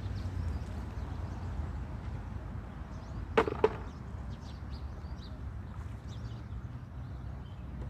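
Two sharp plastic knocks a quarter second apart, a little over three seconds in, as the top and base of a plastic bird waterer are put together. Faint bird chirps and a steady low rumble run underneath.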